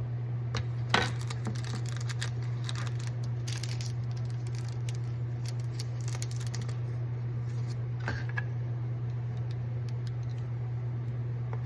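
Short clicks, taps and light rattles of eyeglasses and their case being handled, thickest over the first several seconds with the loudest click about a second in, over a steady low hum.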